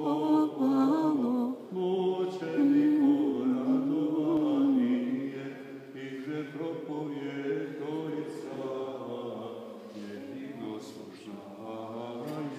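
Voices chanting a slow Orthodox church hymn during the turning of the Slava bread. The singing is loudest in the first few seconds and quieter after about five seconds.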